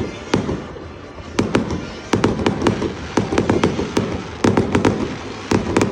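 Fireworks show: shells bursting overhead in sharp bangs, a single bang at first, then quick volleys of bangs from about a second and a half in.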